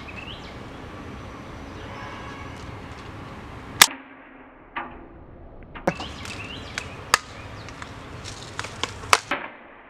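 BB gun shooting at a shaken-up aluminium soda can: one sharp crack about four seconds in, then a run of lighter clicks and snaps as the can is hit and knocked off its post.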